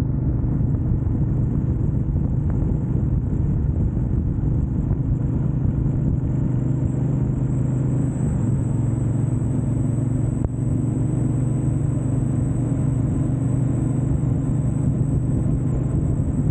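A vehicle engine running at a steady speed, a constant low drone with rushing road and wind noise and no change in pitch.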